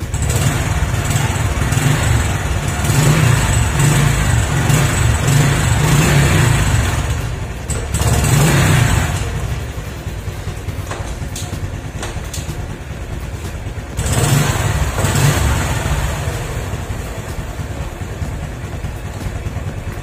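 Honda RS125 Fi single-cylinder four-stroke engine running in gear on the centre stand, driving the freely spinning rear wheel. It is revved up and down, loudest over the first nine seconds and again about fourteen seconds in, settling lower between and near the end. The wheel turns smoothly because the stuck rear brake caliper no longer drags.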